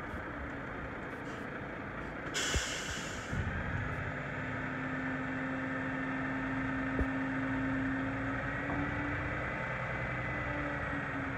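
Kenworth T880 dump truck's diesel engine running while its hydraulic hoist raises the dump bed. A hiss of released air lasting about a second comes two and a half seconds in, then the engine note rises and a steady hum holds as the bed lifts.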